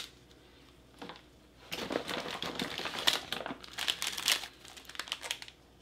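Plastic ration packaging crinkling as it is handled: a small click at the start, then a dense run of crinkling lasting about three and a half seconds.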